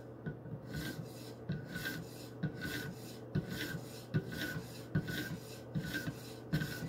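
Fine white Idahone ceramic hone stroked along the edge of a Henckels paring knife on a guided-rod sharpening system, in light, edge-trailing passes: a repeated rasping scrape, about two strokes a second.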